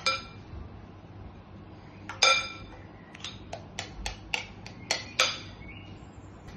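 A spoon clinking against a bowl as the last of a sauce is scraped out over a fish pie. There is one ringing clink about two seconds in, then a run of lighter taps, about three a second.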